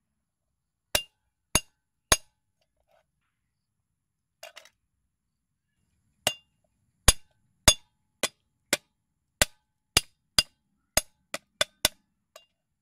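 A steel cleaver chopping down onto a thick wooden chopping board, sharp knocks with a slight metallic ring. Three chops come about a second in, then a run of about a dozen chops, roughly two a second, through the second half as lemongrass stalks are cut.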